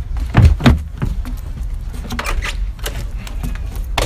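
Hands knocking and banging on a wooden door: irregular knocks and thumps, turning into a rapid flurry of knocks at the very end.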